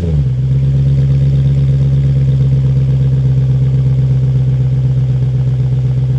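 Jaguar XK8's V8 idling steadily through an aftermarket Adamesh sports exhaust, dropping back from a short rev right at the start.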